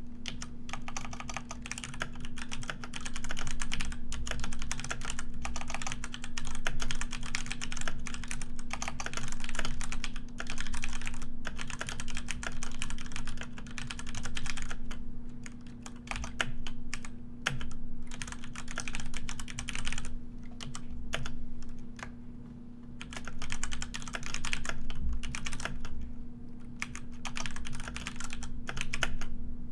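Computer keyboard typing: rapid clicking keystrokes in runs, with short pauses between bursts, over a steady low hum.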